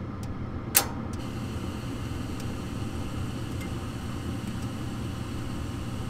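Furnace gas valve clicking open once, about a second in, over the steady hum of the running furnace, followed by a faint steady hiss of gas flowing through. The click and the gas seeping through are the sign that the valve is energized and opening.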